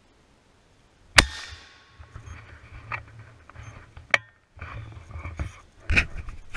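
A shotgun fires once about a second in, the blast echoing away through the trees. A second, shorter sharp crack follows about three seconds later, then knocks and rustling near the end.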